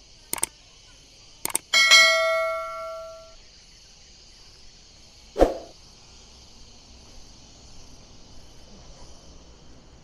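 A few sharp clicks, then something metal struck once and ringing like a bell, fading over about a second and a half. A single dull thud comes about five seconds in, over a steady high insect buzz.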